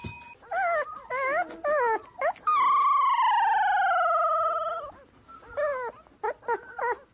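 Husky-type dog vocalizing. It gives a few short, wavering woos, then one long howl of about two seconds that falls slowly in pitch with a wobble, then more short woos near the end.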